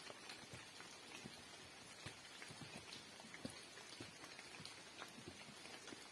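Faint, irregular patter of rain drips mixed with soft footsteps on a wet, slippery mountain trail.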